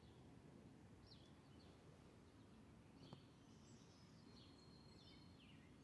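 Faint birdsong: short chirps and trills from small birds, over a low, steady outdoor rumble, with one small tap about three seconds in.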